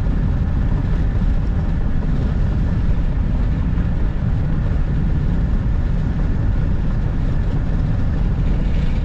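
Steady road and engine noise heard from inside a van cruising at highway speed: a loud, even, low rumble.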